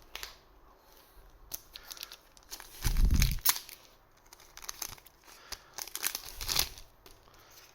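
Foil trading-card booster pack wrapper being torn open and crinkled, with cards handled in between. There are louder rustling bursts about three seconds in and again near the end.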